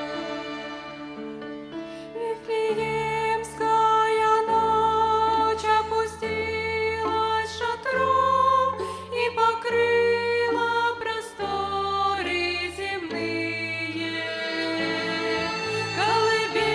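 Violin ensemble playing a slow melody in sustained notes over low held accompaniment, with wavering vibrato near the end.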